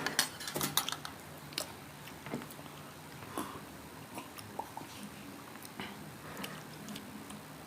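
Close-up eating sounds: crunching bites of crunchy food and chewing, a dense run of crunches in the first second, then scattered single clicks and chews.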